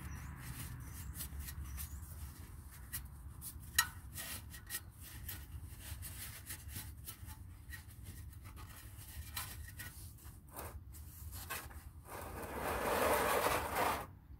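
Shop rag rubbing and wiping around a car's oil pan drain opening, with scattered small clicks and taps and one sharper click about four seconds in. Near the end a plastic oil drain pan scrapes along the concrete floor as it is slid into place, the loudest sound.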